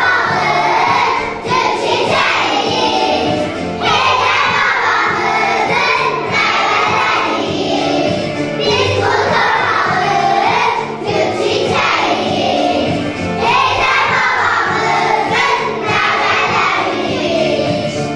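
A children's choir singing an Azerbaijani song in unison over a recorded instrumental accompaniment.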